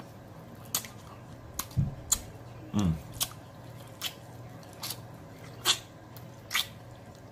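Close-miked wet mouth smacks and sucking as a person eats pig feet by hand, sucking meat off the bones and fingers, with sharp lip smacks roughly once a second. There are two short low hums of the voice, the second falling in pitch, about two and three seconds in.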